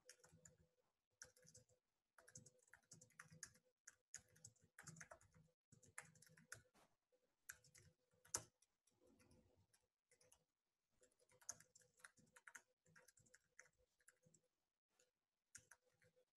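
Faint typing on a computer keyboard: irregular runs of quick keystrokes with short pauses, one sharper click about eight seconds in.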